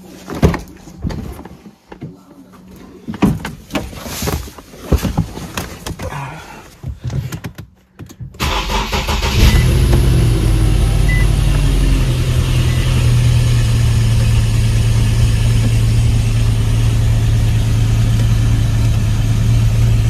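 Scattered knocks and clicks of a car door being opened and someone getting in. About eight seconds in, an Infiniti M37's 3.7-litre V6 starts and settles into a steady idle, running evenly with the cylinder 5 misfire gone after a new coil pack.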